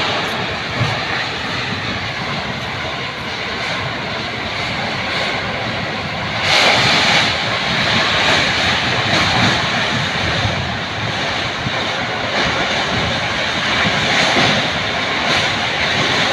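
Heavy wind rushing steadily in gusts, rising to a louder gust about six and a half seconds in.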